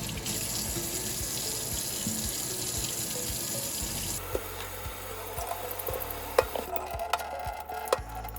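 Kitchen sink faucet running water into the sink, shut off about four seconds in; afterwards scattered light clicks and knocks.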